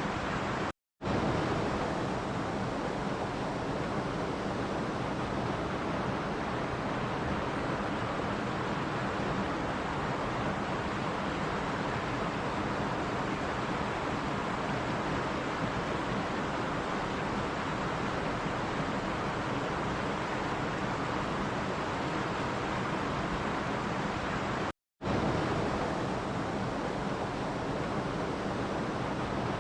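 Steady rushing water noise with no distinct events, cutting out to silence for a split second twice: about a second in and near the end.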